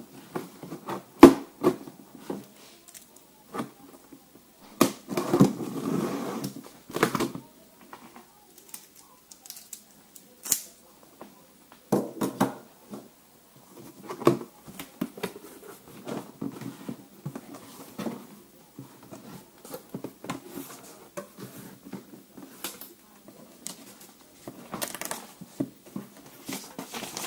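Cardboard box and packaging for a cordless circular saw kit being opened and handled: scattered clicks and knocks with short spells of rustling, the sharpest knock about a second in.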